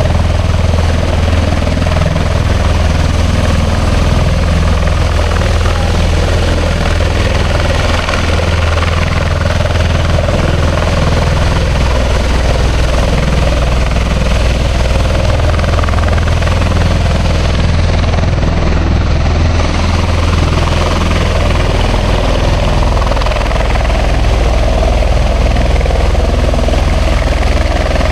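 Large military rotorcraft running close by, loud and steady, with a deep, even low rotor hum that does not change over the whole stretch.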